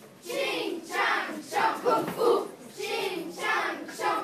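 A group of children chanting and calling out together in a steady rhythm of short syllables.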